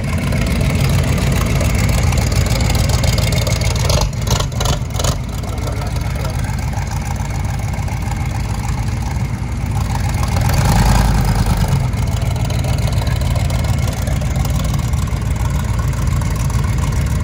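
Mega truck's engine running steadily at low revs, swelling louder about ten seconds in before settling back, with a few brief knocks about four seconds in.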